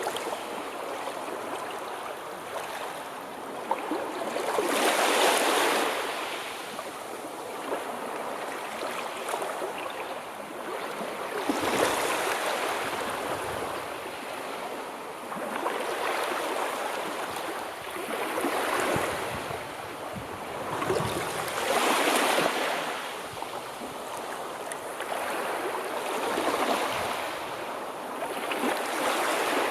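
Sea waves breaking on a shore: a steady wash of surf that swells every three to six seconds as each wave comes in, then eases back.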